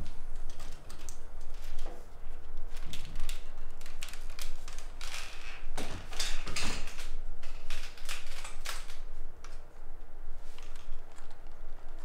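Irregular clicks, taps and short rustles of a video camera and tripod being handled and set up, over a steady low hum.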